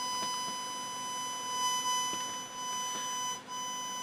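Steady tone from an audio amplifier driven by an Aim-TTI I-Prober 520 current probe picking up a 1 A pulsed current in a PCB ground plane; its loudness follows the current density under the probe tip. The level stays fairly even, a sign of a fairly consistent current through this part of the plane, swelling slightly about two seconds in and dropping out for an instant near the end.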